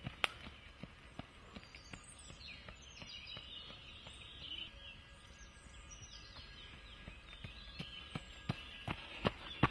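Running footsteps on a dirt forest trail, sharper and closer together near the start and again near the end. Birds chirp in the middle with a run of short, high calls.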